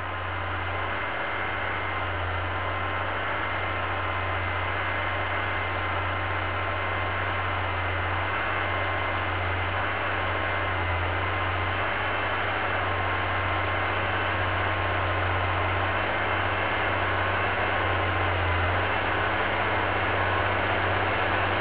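Tractor engine working under load, pulling an Agrisem Cultiplow deep cultivator and Combimulch through stubble. It makes a steady low drone over a hiss and grows gradually louder as the tractor approaches.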